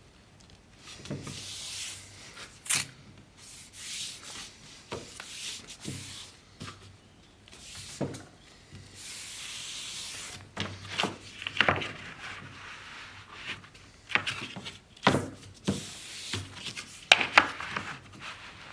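Wood being sanded or rubbed by hand in short hissing strokes, broken up by sharp knocks and taps as the workpiece and tools are handled.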